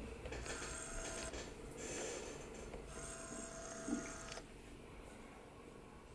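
Faint breathing close to the microphone: a few soft breaths with a slight whistle, and a small tap about four seconds in.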